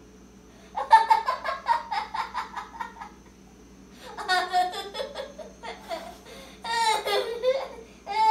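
A child laughing in three fits: a run of quick 'ha-ha' pulses about a second in, another fit near the middle, and a higher-pitched squeal of laughter about seven seconds in.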